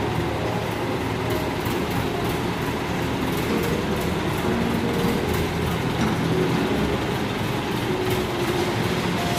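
Diesel engine of an ACE pick-and-carry hydra crane running steadily as the crane drives with a slung load of aluminium ingots, with a light irregular clatter on top.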